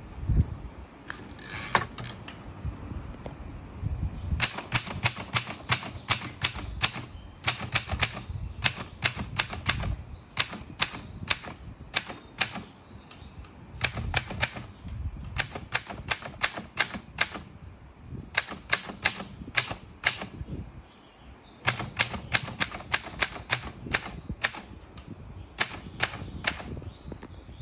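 Alpina typewriter being typed on: keys striking in quick runs of sharp clacks, broken by short pauses between bursts.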